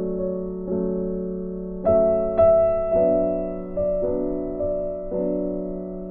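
Background piano music: chords struck every half second to a second, each fading away before the next.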